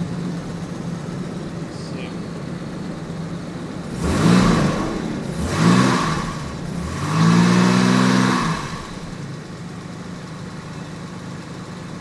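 Jaguar XJ6 Series 3's fuel-injected 4.2-litre straight-six idling, then blipped three times, the third rev held for a moment before it drops back to idle. It is running on a substitute ignition coil, and the rough-idle misfire is smoothed out.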